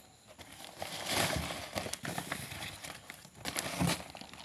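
Rustling and crinkling of a large paper-sack parcel as it is handled and opened, with a few sharp knocks a little before the end.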